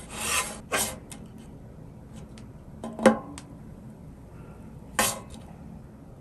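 Spatula scraping on a griddle as it slides under a pancake and flips it: four short scrapes, two close together at the start, one about three seconds in and one about five seconds in, with faint light ticks between them.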